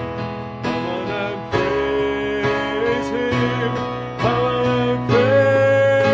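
A worship song sung with strummed guitar accompaniment: one voice holds a melody line with vibrato, and the strums fall about once a second.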